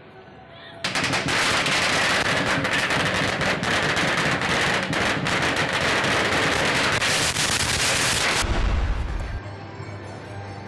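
A string of Chinese New Year firecrackers going off in a loud, rapid, continuous crackle for about seven seconds, ending in a deep thud. Quiet music plays before and after.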